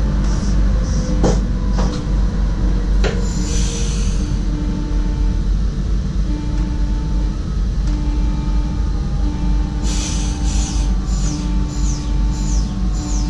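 SGMm Sprinter electric train running at speed, heard from the driver's cab: a steady low rumble, with a few sharp clicks from the wheels over rail joints in the first three seconds.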